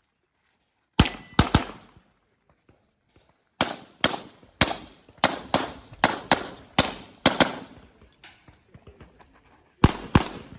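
Handgun shots fired in a practical-shooting stage: quick strings of shots, many in fast pairs, broken by short pauses between target arrays. About fifteen shots in all, the densest run in the middle and a pair near the end.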